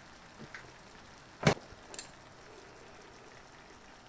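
A kitchen utensil clicking lightly against a cooking pan, with one sharp knock about one and a half seconds in.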